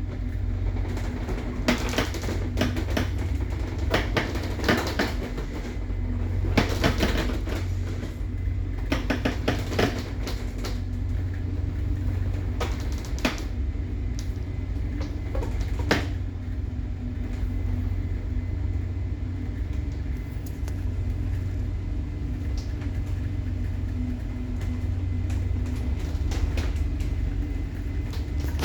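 A ship's hull and fittings creaking and knocking in irregular clusters as the vessel works in a storm at sea, over a steady low rumble inside the vessel.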